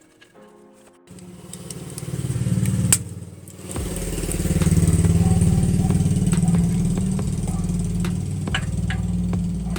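Vehicle engine comes in about a second in, climbs to a peak near three seconds, drops back briefly, then runs steadily and loud.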